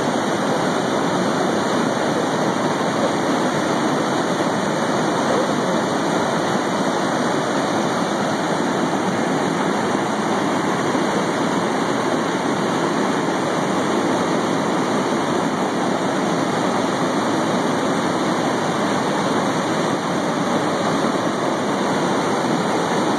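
Steady rush of river water pouring over a dam and churning into whitewater below it.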